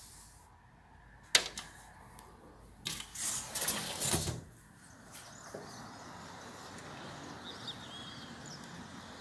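A sharp click, then a window scraping as it slides open for about a second and a half; after that, steady outdoor city ambience with a few faint bird chirps.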